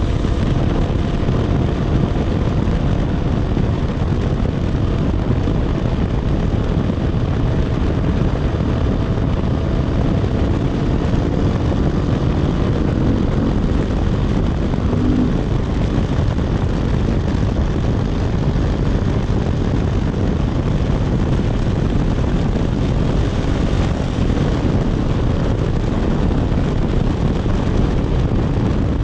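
Dirt bike engine running steadily at cruising speed, heard from on board, mixed with a steady rush of wind and road noise.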